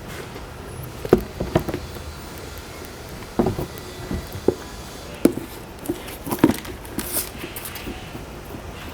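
Irregular knocks, taps and short rustles of a sneaker and its packaging being handled, over a steady background hiss.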